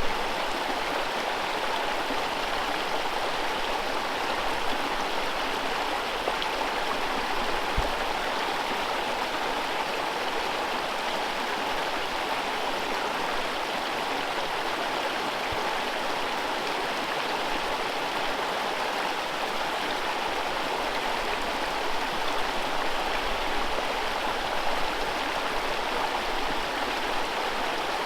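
Forest river rushing over whitewater rapids: a steady, even roar of flowing water.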